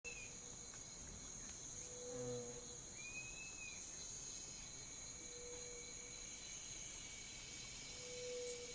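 Night swamp ambience: a steady high trilling of crickets, with a short low call recurring about every three seconds and an arching higher chirp twice.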